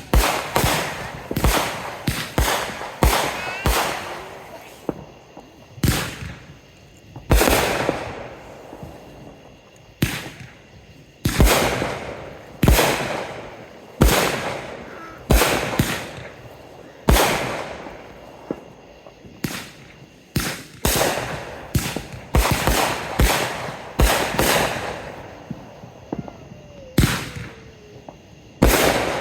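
Fireworks going off: a long run of sharp bangs, one every second or two, each trailing off as it echoes away.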